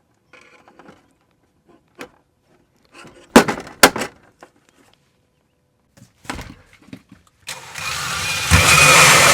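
A couple of sharp knocks on metal, then a small power tool's motor runs steadily with a whine for about two and a half seconds near the end.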